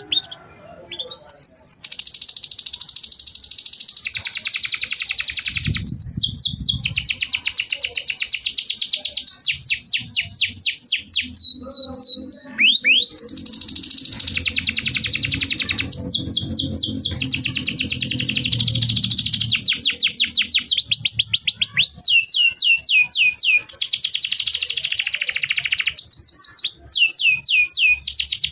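Domestic canary singing a long, nearly unbroken song of fast high trills and quick rising chirps, with only brief pauses.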